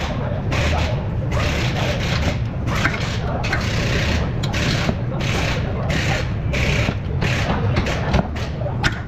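Torque wrench ratcheting in repeated short strokes, about one every half second, as the strut-to-knuckle bolts are tightened to 85 N·m, over a steady low workshop rumble.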